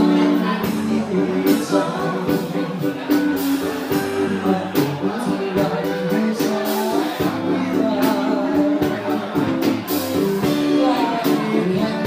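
Live band playing a song: a singer over drums and electric guitar, with a steady beat.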